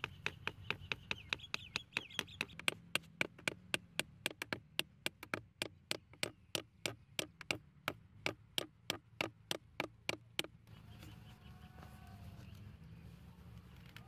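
Claw hammer tapping a thin wooden stick into the ground in quick, even strikes, about three a second, which stop about ten seconds in.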